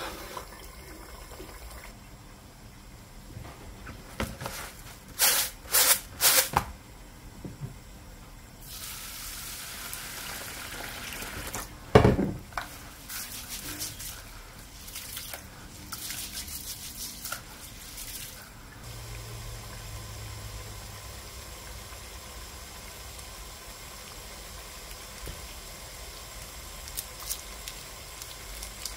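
Kitchen work with water: running water, and raw rice being washed by hand in a plastic bowl of water, grains swished and rubbed. Several sharp clatters come first, then one loud knock in the middle, and a low steady hiss follows.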